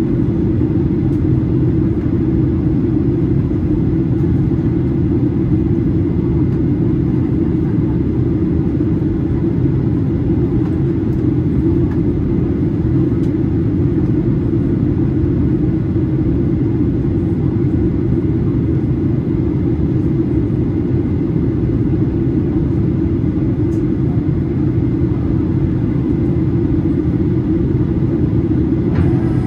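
Steady low rumble of cabin noise inside a Boeing 737-800, the drone of its CFM56-7B engines heard from a window seat.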